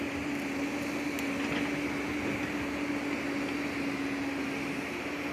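A steady mechanical hum holding one constant tone over an even hiss.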